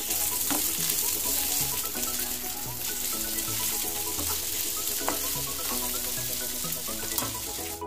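Sliced ivy gourd (kunduli) frying in hot oil with onions and green chillies, sizzling steadily as a wooden spatula stirs it, with a few light knocks of the spatula against the pan. Soft background music runs underneath.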